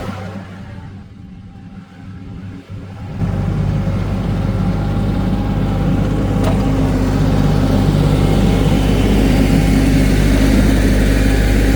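Kioti NS6010 compact tractor's diesel engine running steadily, much louder and closer from about three seconds in.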